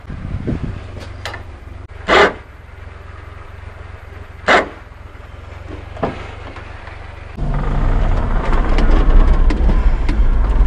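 Daihatsu Hijet mini truck's 660cc three-cylinder carbureted engine running low and steady, with two short loud bursts of noise in the first half. About seven seconds in it turns much louder and rougher, heard from inside the cab as the truck drives.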